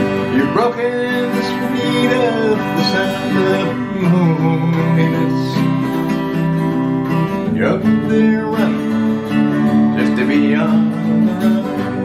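Twelve-string acoustic guitar strummed through an instrumental passage between sung lines. The chord changes about four seconds in and again near the eight-second mark.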